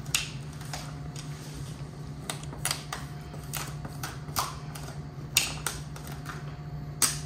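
Satin black vinyl wrap film crackling and clicking as it is pressed and worked onto a plastic console trim piece with a handheld squeegee. About a dozen short, irregular crackles, the loudest near the end, over a steady low hum.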